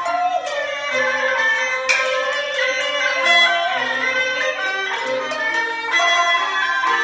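Peking opera string accompaniment playing a melodic passage: the jinghu leads, with the jing erhu and a plucked lute. A sharp clack comes about two seconds in.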